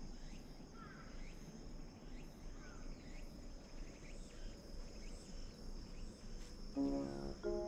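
Insects calling in a steady high-pitched drone, with faint short bird chirps now and then. About seven seconds in, background music with brass notes comes in over it and is the loudest sound.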